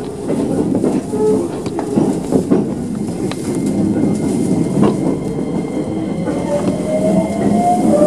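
Keisei electric train running on the rails, with a steady rumble and scattered clicks and knocks from the wheels. Over the last couple of seconds a motor whine rises steadily in pitch as the train picks up speed.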